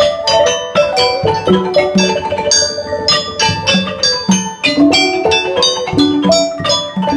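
Cambodian pinpeat ensemble playing: a wooden roneat xylophone struck with mallets in quick runs of notes, with a gong circle and regular low drum beats underneath.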